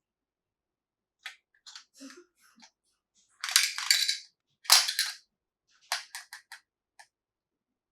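Plastic toy pieces and packaging being handled, close up: a few sharp clicks and taps, two louder crinkly rustles a little past the middle, then a quick run of clicks.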